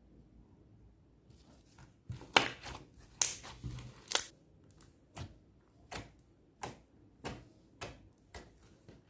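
Clear slime with sand mixed in being squeezed and pressed by hand: after a quiet start comes a burst of crackling clicks, then an even run of about seven sharp pops as air pockets in the slime burst.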